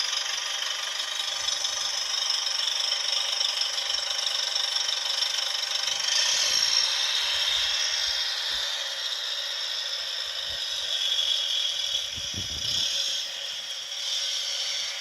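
Recorded engine sound of a 1/8-scale Citroën Type H model's sound effect, played through a small speaker: a tinny, rattly running-engine noise with no bass, rising and falling a little in level.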